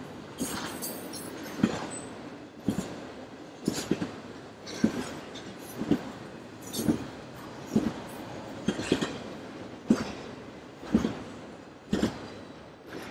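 Norfolk Southern freight cars rolling past, their wheels clicking over a rail joint in evenly spaced doubled clicks about once a second over a steady rolling rumble.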